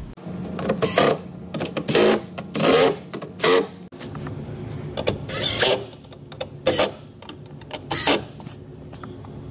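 Cordless drill with a socket bit driving in the screws that hold a 6x8 door speaker, run in a string of short trigger bursts, about ten in all.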